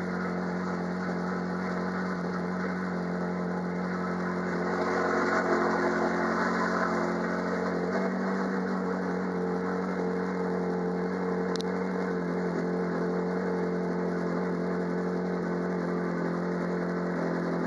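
Ferrari 458 Challenge's 4.5-litre V8 idling steadily in neutral with the car standing still, heard from inside the cockpit. It swells a little louder for a couple of seconds about five seconds in.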